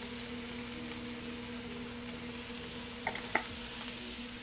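Vegetables sizzling in hot oil in a pan, a steady hiss, with two short clicks about three seconds in, like a utensil touching the pan.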